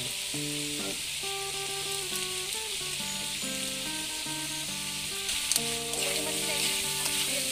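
Winged beans and pork frying in a wok, a steady sizzle, with background music playing a melody over it.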